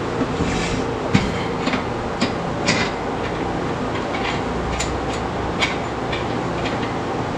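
Irregular metallic clicks and clinks as the threaded steering tie rod and its rod end on a steel wagon frame are handled and adjusted to correct the wheel alignment, over a steady background hum.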